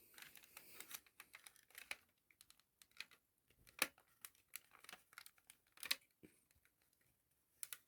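Faint, scattered small clicks and taps of plastic and metal parts being handled as a set-top box is taken apart, with a sharper click about four seconds in and another just before six seconds.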